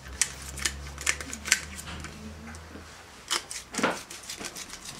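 Salt being added from a small glass seasoning jar over a pan of raw vegetables: a run of irregular light clicks and crunches, the sharpest a little past three and near four seconds in, over a faint low hum.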